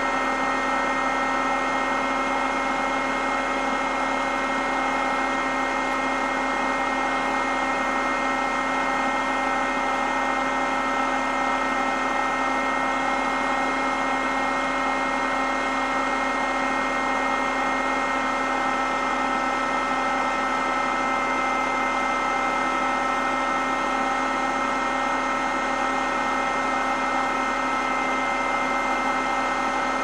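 AEG electric foot massager running steadily: a constant motor hum with several fixed pitches over a whirring hiss, never changing in speed or level.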